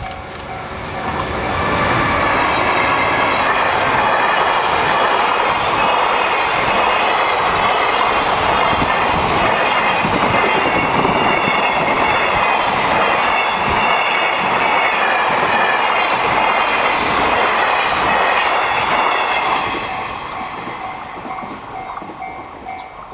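A freight train passes: an EH500 electric locomotive hauling Koki container flatcars. The wheels on the rails make a loud steady rush with rhythmic clickety-clack over the rail joints for about eighteen seconds. The level crossing's warning bell rings in a steady repeating pattern as the train arrives and again as its sound fades near the end.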